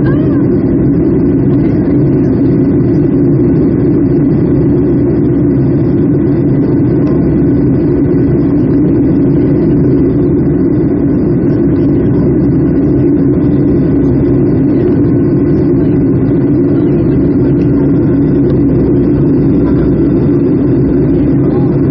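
Boeing 757-200 engines and airflow heard from inside the passenger cabin, a steady, loud, low drone that does not change.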